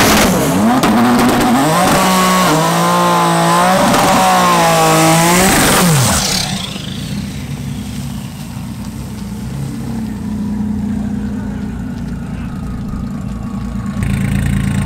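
Nissan GT-R drag car's twin-turbo V6 revving repeatedly, its pitch swinging up and down, then launching about six seconds in with a brief loud surge that falls away quickly as the car leaves. After that a steady lower engine hum carries on, jumping louder near the end.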